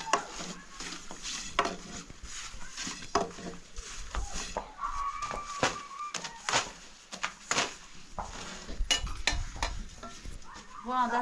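Dishes and metal utensils clattering and scraping in irregular knocks and clicks, as when pots and crockery are handled, stirred or washed.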